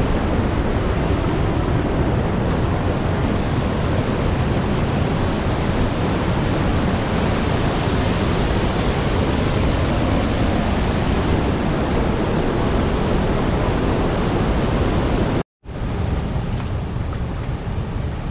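Steady, loud rush of a large waterfall and whitewater rapids heard from close above. Near the end it cuts out for a moment and gives way to a softer rush of moving river water.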